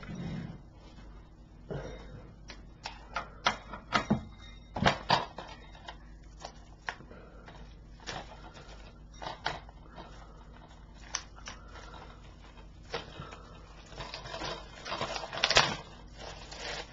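A mailed package being opened by hand: irregular sharp clicks and taps of packaging being handled, with a longer stretch of rustling near the end.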